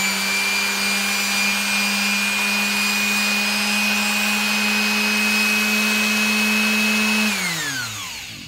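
Ryobi 100 V electric sander running with no load, a steady motor hum with a high whine above it. It is switched off about seven seconds in and winds down with falling pitch.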